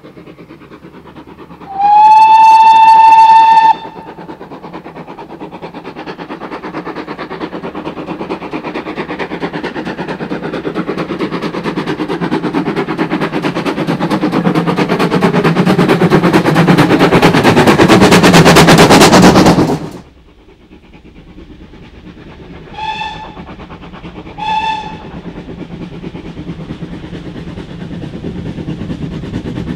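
A steam locomotive's whistle gives one long blast near the start, then the train's running noise builds steadily louder as it comes on, until it cuts off abruptly about twenty seconds in. Two short whistle toots follow, and the train sound builds again towards the end.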